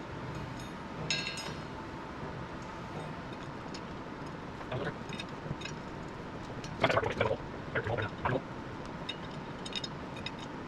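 Metal clinks and short scrapes from hand tools and nuts being worked onto the bolts of a skid steer's track drive. There is a brief ringing clink about a second in, and the loudest clattering comes in short spells about two-thirds of the way through.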